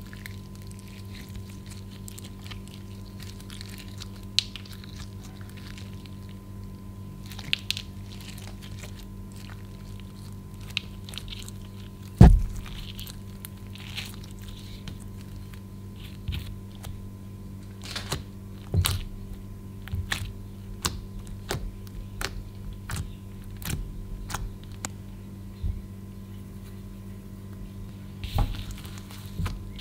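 Clear green slime being squeezed and kneaded by hand, making sharp, irregular wet clicks and pops that come thicker in the second half, with one heavy thump about twelve seconds in. A steady low electrical hum runs underneath.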